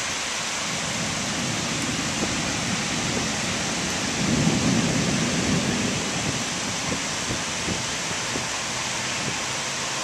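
Heavy rain falling in a steady hiss, with a low rumble of thunder swelling about four seconds in and fading over a couple of seconds.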